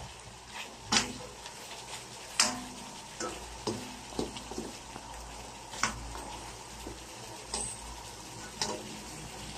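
Chicken pieces frying in oil in a nonstick wok, a faint steady sizzle, with a spatula knocking and scraping against the pan every second or two as the chicken is stirred. The chicken is being browned before any liquid goes in.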